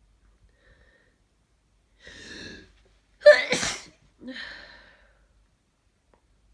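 A person with a congested head cold sneezing once, hard. A breathy gasp of intake about two seconds in, then a sudden loud sneeze, then a shorter breathy breath out.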